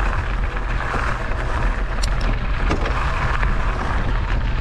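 Steady road and wind noise from a moving vehicle, a constant low rumble under a hiss, with a brief click about two seconds in.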